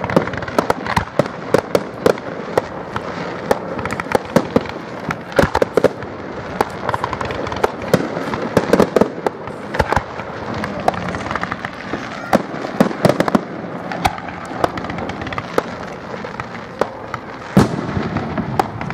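Aerial fireworks shells bursting in a display: a dense run of sharp bangs and crackles, with the loudest boom near the end.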